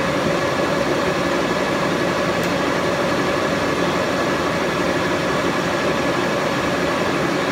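A 76-inch Bullard vertical turret lathe running with its table turning: a steady machine hum with several constant tones over it.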